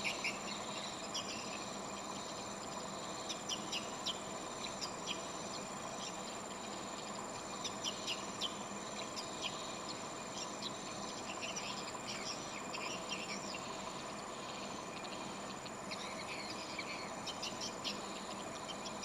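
Swiftlets chirping and clicking in irregular short clusters over a steady high-pitched insect-like trill.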